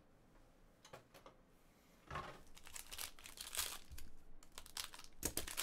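Foil wrapper of a Panini Gold Standard basketball card pack crinkling and tearing as it is ripped open by hand, starting about two seconds in.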